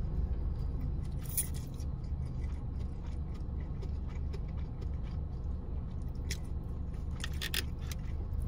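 Mouth sounds of chewing noodles, with a few sharp clicks and scrapes of a plastic fork in a styrofoam takeout box, bunched near the end, over a steady low rumble inside a car.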